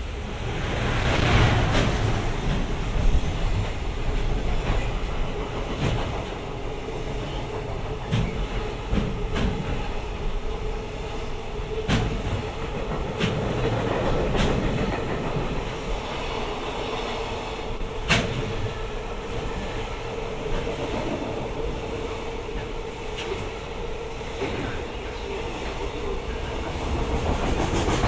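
A JR Freight train running past a station platform, its wagons rumbling by steadily, with a steady tone underneath and sharp clicks every few seconds as wheels cross rail joints. The sound swells about a second in.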